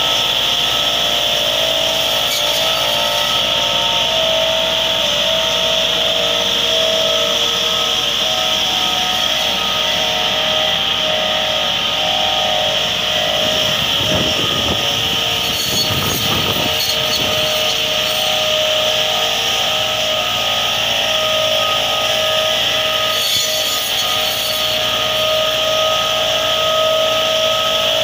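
Massey Ferguson 385 tractor's diesel engine running with its front-mounted hydraulic tree-trimming saw, the circular cutter discs spinning with a steady whine as they cut through leafy branches. A rougher, noisier stretch about halfway through.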